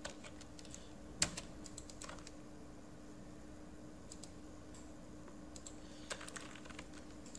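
Computer keyboard keys and mouse clicks tapping at irregular intervals, with one loud keystroke about a second in, over a steady low hum.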